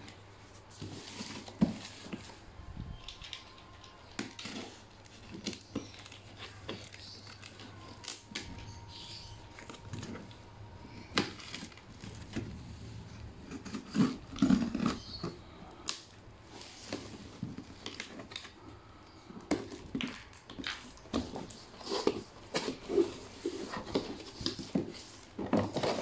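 A cardboard shipping box being opened: a box cutter slitting the packing tape, then the flaps pulled open and cardboard handled. It makes irregular scrapes, rustles and knocks, loudest about halfway through and again near the end.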